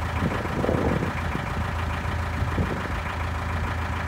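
Narrowboat's inboard diesel engine running steadily under way.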